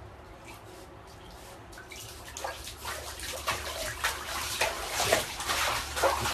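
Water splashing and sloshing in a bathtub as a Shiba Inu moves about in it, starting about two seconds in and growing louder, over a low steady hum.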